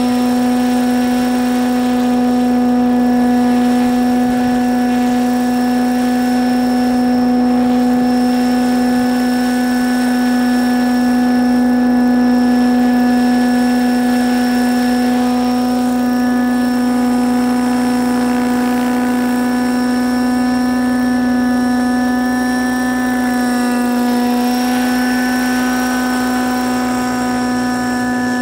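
Thunder Tiger Raptor 90 SE radio-controlled helicopter hovering, its OS nitro glow engine and rotors running at a steady, even whine. The pitch dips briefly late on and then recovers.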